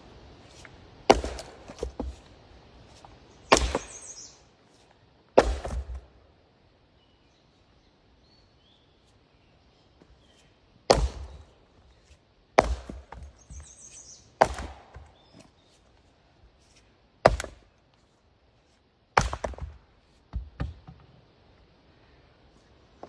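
Axe blows splitting sugar maple rounds, a wood that is hard to split: about ten sharp strikes at irregular intervals, several followed by a smaller knock, with a quiet pause of a few seconds in the middle.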